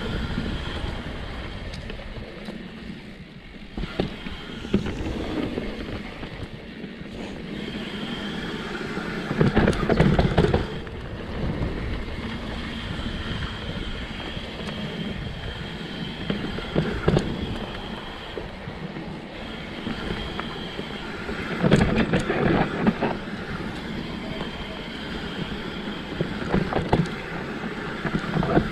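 Mountain bike riding fast down a dirt trail: tyres rolling over the dirt, wind buffeting the microphone, and the bike rattling over bumps, with louder clattering stretches about ten seconds in and again a little after twenty seconds.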